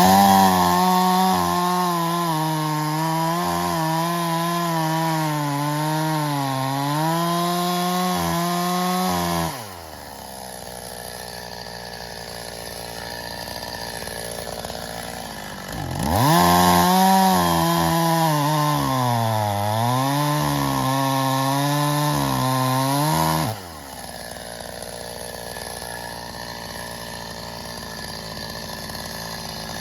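Stihl MS 270 two-stroke chainsaw run at full throttle through birch logs, its pitch sagging and recovering under the load of the cut. It drops to idle about a third of the way in, revs up for a second cut of about seven seconds, then falls back to idle.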